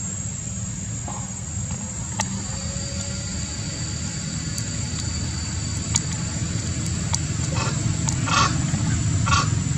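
Steady low rumble with a thin, constant high-pitched whine over it. About three-quarters of the way in come a run of short rustles, leaves and twigs shaken as a young monkey clambers through the branches.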